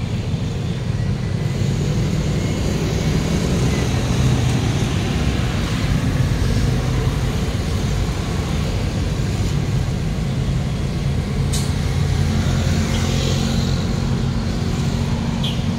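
Suzuki Every (DA17W) kei van's small engine idling steadily, heard close at the rear of the van. One short click about eleven seconds in.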